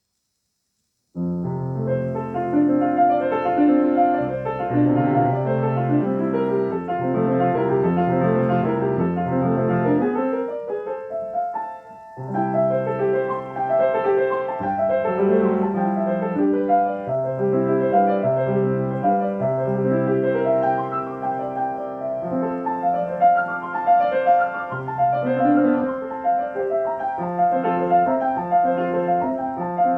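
Solo classical piano playing, starting suddenly about a second in after silence, with a brief pause in the music about a third of the way through.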